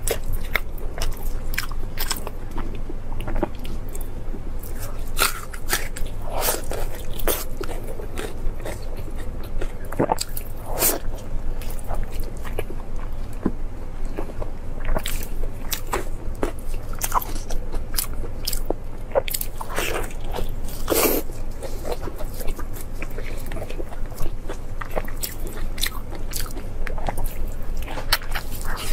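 Close-miked eating: a person biting into and chewing soft braised meat, with irregular wet smacks and sharp clicks from the mouth, over a steady low hum.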